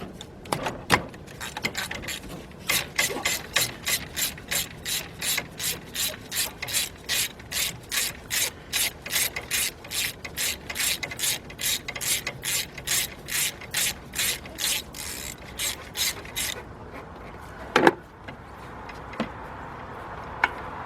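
Hand socket ratchet clicking in steady, even strokes, about three clicks a second, as a spark plug is backed out of the engine. The clicking stops near the end and is followed by a single sharp knock.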